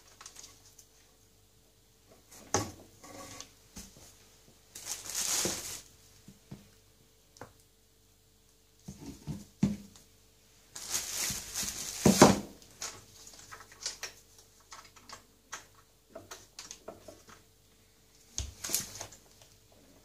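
Handling noise from hands working at the heater element of a washing machine tub: scattered clicks and light knocks, with two longer scraping or rustling stretches about five and eleven seconds in.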